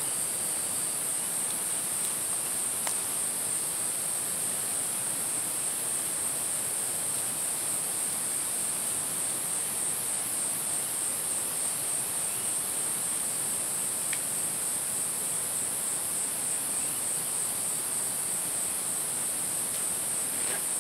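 Steady chorus of forest insects: a continuous high-pitched buzz with a faint pulsing, over a soft even hiss.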